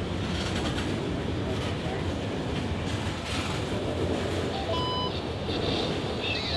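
A train rolling past, a steady rumble of wheels on the rails.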